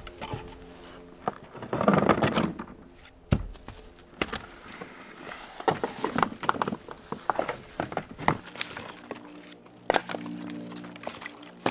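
Split firewood logs being handled and tossed onto a pile: hollow wooden knocks and clattering as logs strike one another, with a longer scraping rustle about two seconds in.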